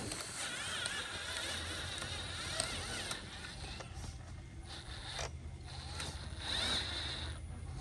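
Radio-controlled model construction machinery running: small electric motors and gearing whining with a wavering pitch over a steady low hum, with a few light clicks.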